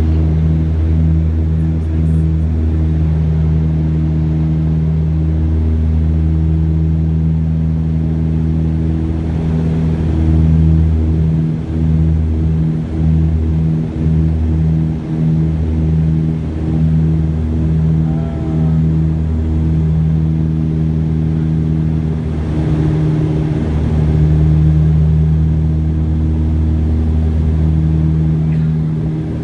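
Turboprop airliner's engines and propellers droning steadily in flight, heard from inside the passenger cabin: a loud, low, even drone that pulses in and out at times.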